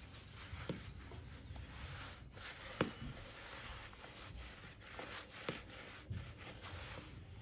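Hand mixing flour and water into a rough dough in a plastic bowl: faint rubbing and squelching, with a few short knocks, the sharpest a little under three seconds in.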